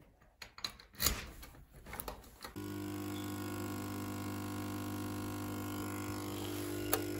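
A few clicks and knocks from handling a door handle. Then, about two and a half seconds in, a coffee machine starts dispensing into a glass cup, with a steady hum. There is a sharp click near the end.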